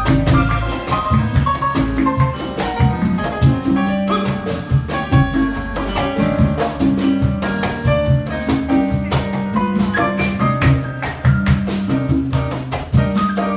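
A jazz band playing a Latin-tinged piece: a bass line of held low notes, a drum kit keeping a busy beat, and melodic notes over the top.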